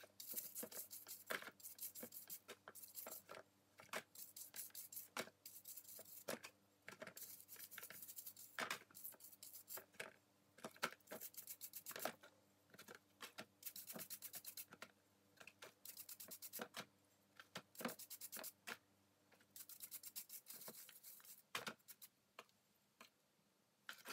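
Faint dishwashing brush scrubbing the metal parts of a dismantled lathe chuck to clean them: runs of quick, scratchy strokes with light clicks, several a second.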